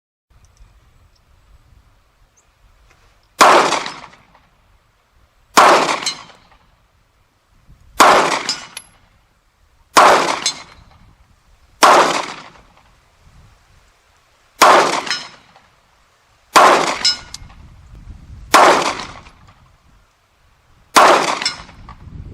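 Glock 19X 9mm pistol fired nine times in slow, steady succession at a steel gong about 100 yards off, a shot roughly every two seconds, each one trailing off quickly.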